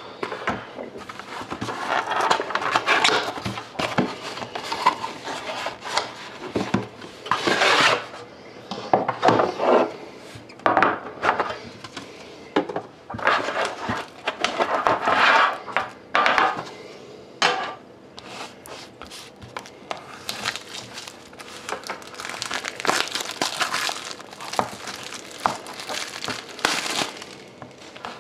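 Hands opening and handling a sealed trading-card tin and its wrapping: irregular rubbing, scraping and plastic crinkling, with occasional light knocks.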